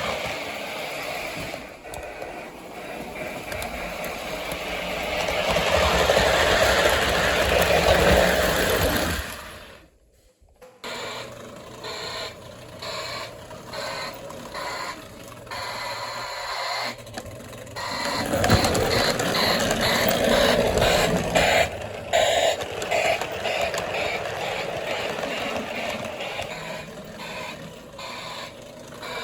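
Three-rail toy electric train running, a dense mechanical rattle; after a brief break about ten seconds in it goes on with a regular beat of clicks.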